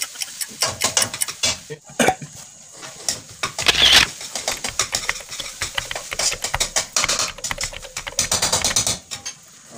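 Metal kitchen utensils clattering and scraping in quick, irregular clicks and clanks, as a spatula stirs fried rice in a wok, with one louder scrape-like burst about four seconds in.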